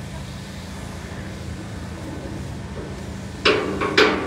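Two loud metal clangs about half a second apart near the end, each ringing briefly, over a steady low mechanical hum.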